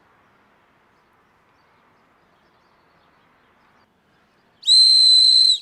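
Carved wooden signal whistle blown once: a single high-pitched, steady blast of about a second, starting about four and a half seconds in, over faint outdoor background.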